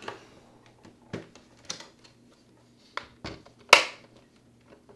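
Hard plastic clicks and snaps of an OtterBox Defender case's shield cover being snapped onto an iPad, about six sharp clicks and knocks, the loudest about three quarters of the way through.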